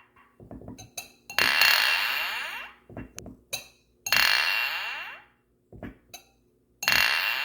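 Glass clinking: three clear strikes, each left ringing with a high tone that fades over about a second and a half, with lighter taps of glass in between.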